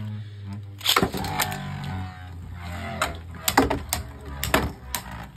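Two Beyblade Burst spinning tops, Fangriff F2 and Phantazus P2, whirring steadily as they spin in a plastic stadium. Several sharp clacks mark where they hit each other and the stadium walls.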